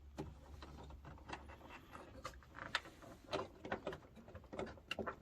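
Light, irregular clicks and knocks of boiler components and fittings being handled and pushed into place by hand.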